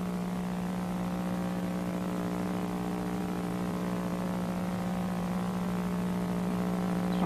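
Steady electrical hum with many overtones, unchanging in pitch and level.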